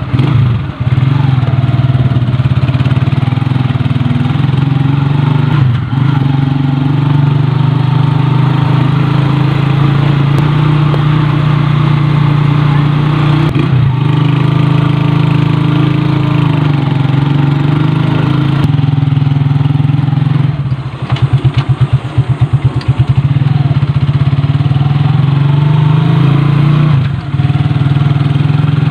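Motorcycle engine running as the vehicle rides along, with a steady low hum that dips briefly in pitch a few times. About three quarters of the way through it drops to slow, pulsing low revs for a couple of seconds before picking up again.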